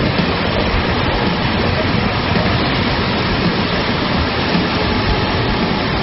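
Floodwater rushing in a steady, loud rush of water.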